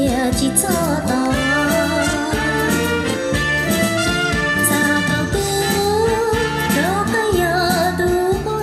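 Music with a singing voice: a sung melody that glides and bends in pitch over a steady accompaniment.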